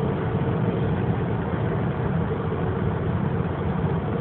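Porsche 911 Carrera 4's flat-six engine with road and wind noise, heard from inside the cabin as a steady drone at high speed.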